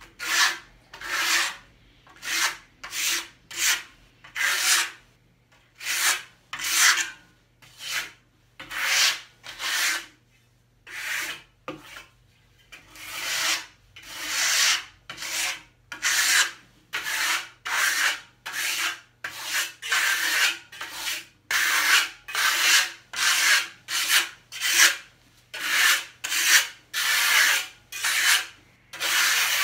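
Gloved hand rubbing the surface of a freshly applied decorative mortar top coat on a table top, in repeated back-and-forth strokes, about one or two a second, with a brief pause about a third of the way through.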